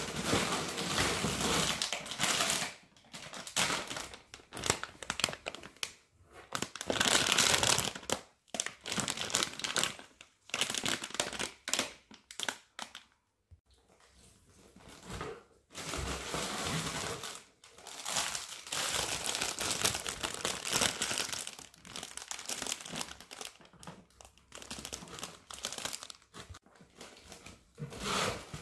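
Packaging crinkling and rustling inside a cardboard box in irregular bursts with short pauses, as a border collie noses through the contents and a hand rummages inside.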